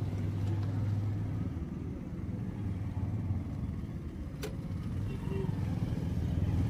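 Motorbike engines running slowly in a traffic jam, with a steady low engine hum that fades about two and a half seconds in. A single sharp click about four seconds in.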